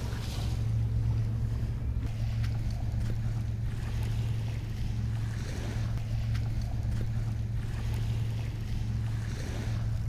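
Steady low drone with a light hiss of wind over it.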